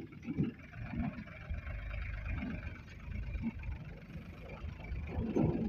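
Mahindra 265 DI tractor's three-cylinder diesel engine running under heavy load as it pulls a trolley heaped with soil, so hard that the front wheels lift off the ground. It is a continuous low rumble with short uneven surges.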